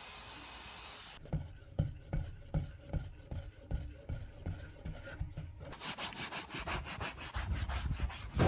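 A steady spray hiss for about the first second, cutting off suddenly. Then rhythmic back-and-forth rubbing strokes by hand on a surface being repaired, about two or three a second, turning faster and brighter, about five a second, for the last few seconds.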